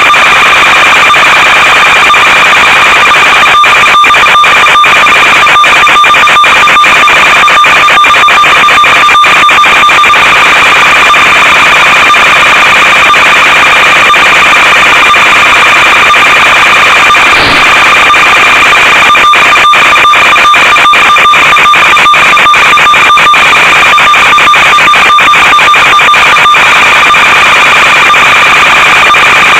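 Loud, steady buzzing static with a high-pitched tone running through it, broken again and again by brief dropouts: the audio channel of an analog FPV video link, recorded with the goggle feed.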